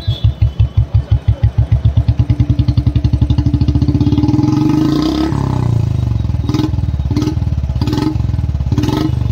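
Royal Enfield Thunderbird 350X single-cylinder engine running through a long-bottle aftermarket silencer. It idles with an even thump whose beats quicken as the revs climb over the first half, then gives four short throttle blips near the end.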